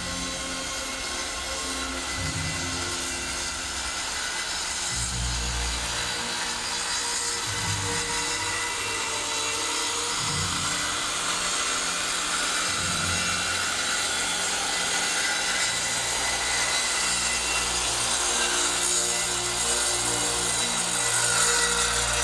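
Corded Skil circular saw running steadily as its blade cuts through old wooden floorboards.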